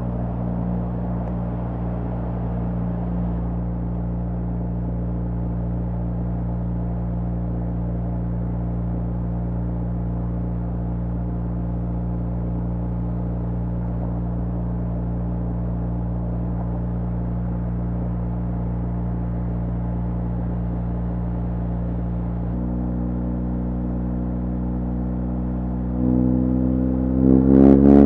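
BMW R1200GS Adventure's boxer twin, breathing through an Akrapovic HP exhaust, running at a steady cruising speed with a constant note over a steady hiss. Near the end it gets louder and the note climbs as the bike accelerates.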